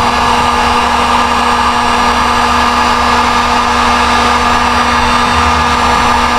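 Handheld electric heat gun running steadily, its fan blowing hot air as a constant rush with a steady hum underneath.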